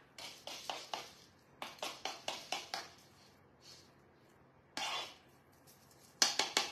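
A spoon tapping against a small cup in quick runs of light taps, about five a second, to knock coarse sugar grains and spice mix out over cookie dough. The taps get faster and louder near the end.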